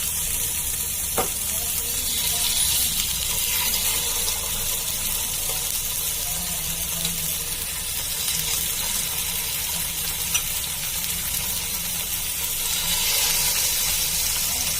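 Fish frying in hot ghee in a frying pan: a steady sizzle, with a couple of brief clicks.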